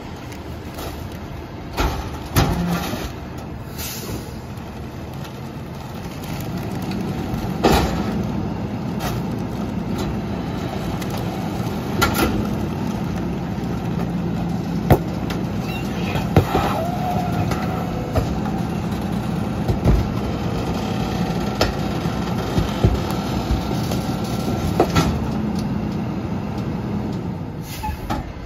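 Heil PT1000 rear-loader garbage truck running its packing cycle: the engine speeds up to drive the hydraulics while the packer blade sweeps and compacts bags of trash, giving a steady drone that rises about six seconds in. Scattered clunks and knocks run through it, the first ones about two seconds in as bags land in the hopper.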